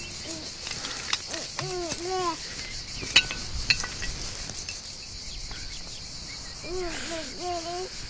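Forest background of steady insect chirring, with short hooting calls, owl-like: two about two seconds in and three near the end. A couple of sharp clicks in the middle as a metal canteen is handled.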